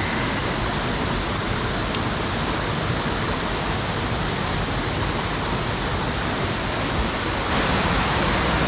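Mountain stream rushing over a shallow, stony riffle: a steady, even water noise, stepping up a little louder about seven and a half seconds in.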